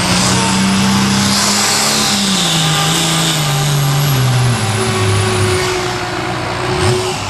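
Super farm class pulling tractor's turbocharged diesel engine running flat out under the load of the pulling sled. Its pitch sinks steadily from about two seconds in as the engine is pulled down, then drops away a little past halfway, with a faint high whistle falling alongside.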